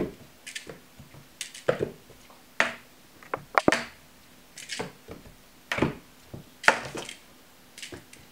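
Irregular sharp taps and knocks as a kitten jumps at and bats a toy dangling on a string against a wooden door, its paws landing on a hardwood floor.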